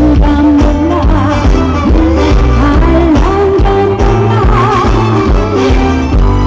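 A woman singing live into a microphone with vibrato, over amplified backing music with a steady beat.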